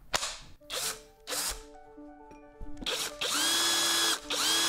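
Dexter cordless drill motor running on a Parkside 20 V lithium battery fitted through a 3D-printed adapter, on its test run. A few knocks come first, then the motor runs in short bursts and spins up to a steady high whine twice, about a second and then half a second, with a brief stop between.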